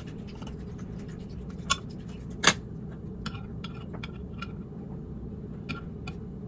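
A knife and then a spoon clicking and scraping against a glass mason jar while cutting and scooping the set fat off the top of chilled bone broth: scattered light clicks, the loudest about two and a half seconds in.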